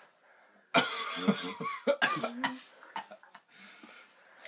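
A man coughing hard in a fit of several coughs, set off by the burn of the hot chillies he has just eaten. The fit starts suddenly about a second in, lasts about two seconds, then gives way to quieter breaths.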